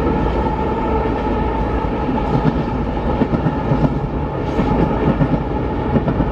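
Steady rumble of a car driving at highway speed, heard from inside the cabin, with a constant hum and rough road noise.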